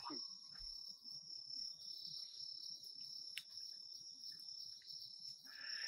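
Bell crickets (suzumushi) chirring steadily and faintly in the night, a continuous high-pitched ringing trill.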